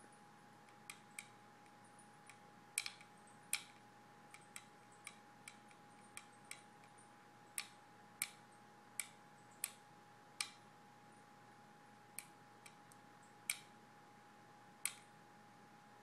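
A sleeping dog tapping while she dreams: sharp, irregular clicks, some in quick pairs, with gaps of a second or more between them.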